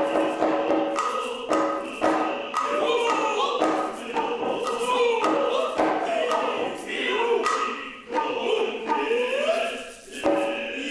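Noh music: sharp strokes on hand drums, with steady held voice tones from chanting and the drummers' long calls that glide upward in pitch, one near the end.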